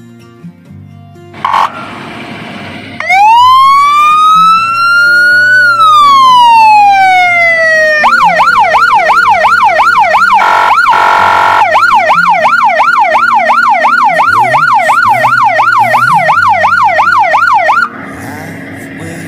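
Volvo FL fire engine's siren sounding through its modes: after a short blip, one slow wail rising then falling, then a fast yelp repeating about four times a second. The yelp is broken about two thirds of the way through by a steady horn blast of a second and a half, and cuts off suddenly near the end.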